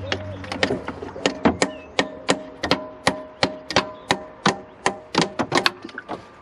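Nylon-faced hammer striking the old water pump on a BMW N47 diesel engine: a rapid run of blows, about three a second with a faint ring between them, stopping shortly before the end. The blows are meant to shock loose a pump that is stuck fast on the cylinder head, and it does not come free.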